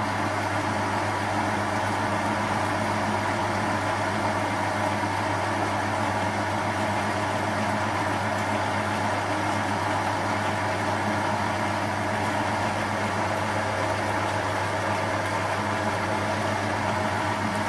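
Small bench metal lathe running steadily at 465 RPM, its motor and gearing giving a constant hum, while a shear tool takes a light dry finishing cut on soft cast aluminium under power feed.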